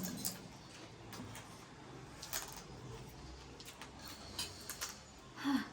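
Quiet eating sounds: scattered soft clicks and smacks of chewing and utensils while eating noodles.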